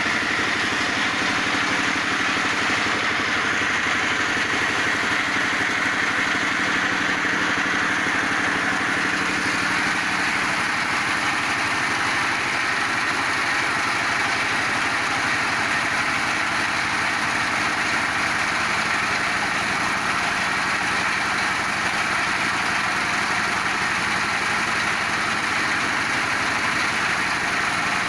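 Multifunction feed pellet machine running steadily under power, a continuous mechanical drone, with a lower hum that fades out about eleven seconds in.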